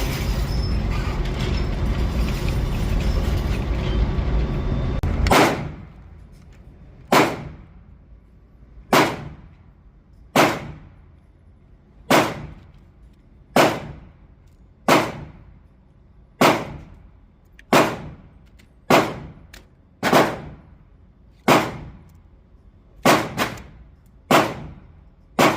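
A loud steady noise for about five seconds, then cut off. After it, sharp clacks about every second and a half as .45 rounds are pushed one at a time into a Glock 21 magazine with an Elite Tactical Systems speed loader.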